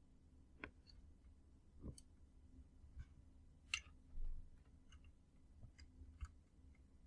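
Faint scattered clicks and scrapes of a plastic power connector being worked into a floppy drive's power socket, with a dull low thump about four seconds in.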